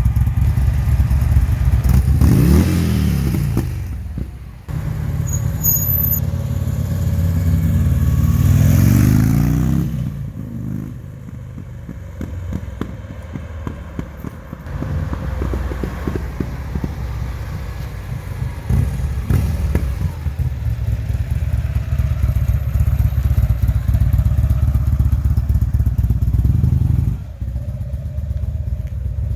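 Buell XB12S Lightning's Thunderstorm V-twin breathing through a Sebring exhaust. It revs up briefly about two seconds in, climbs again for several seconds from about six seconds, then drops back to a lumpy, uneven run with a few short blips of throttle.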